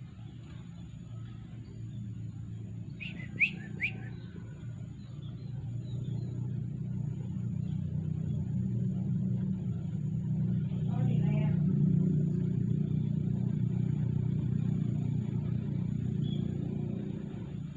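Two short, shrill lovebird chirps about three and a half seconds in, over a low rumble that swells louder past the middle and fades near the end.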